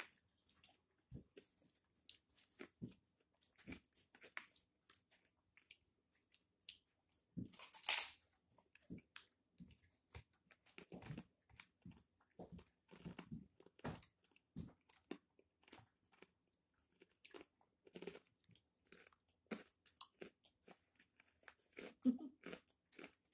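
Crispy fried pork skin being bitten and chewed: a steady run of short, sharp crunches, with one much louder crunch about eight seconds in.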